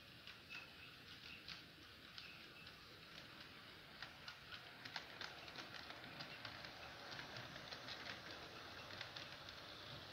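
Model train rolling over sectional track and a turnout: a run of light clicks from the wheels crossing the rail joints and points, sparse at first and coming thick and fast from about four seconds in as the locomotive and cars pass, over a faint hiss.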